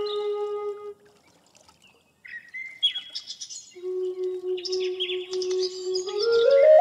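Eritrean shambuko flute holding a low note that stops about a second in. After a short gap, songbirds chirp, and the flute comes back in with a long held note under the chirping, climbing higher near the end.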